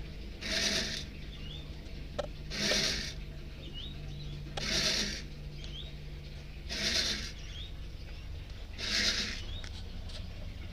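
Coffee beans rasping in a bread-machine pan as the kneading paddle sweeps them round, a burst of rustle about every two seconds, over a steady low hum.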